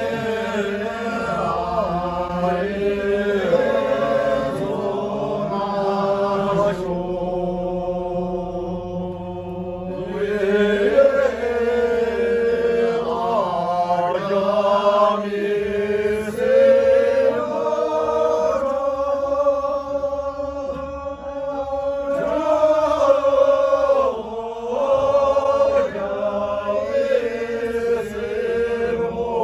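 A mixed group of men and women singing a slow Sherpa Shyabru song without instruments, with long held notes.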